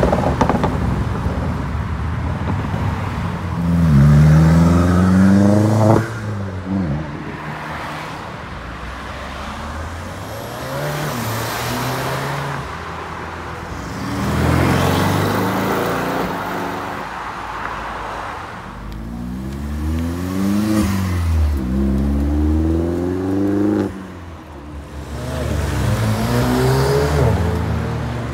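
Several performance cars accelerating hard one after another, their engines revving up through the gears, the pitch climbing and then dropping sharply at each upshift, with quieter stretches of engine and tyre noise as they pull away.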